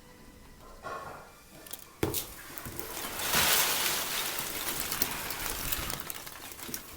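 Rustling and crinkling of packing material as the shipping box is rummaged through, starting with a sharp click about two seconds in.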